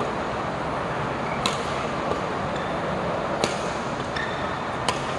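Badminton rackets striking the shuttlecock in a rally: three sharp hits about a second and a half apart, over a steady hiss of heavy rain.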